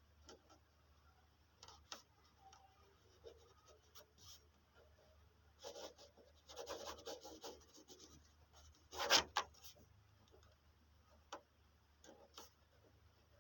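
Paper notebook being handled: scattered light taps and soft paper rustles, a longer scratchy rustle of paper about six seconds in, and the loudest sharp paper snap just after nine seconds.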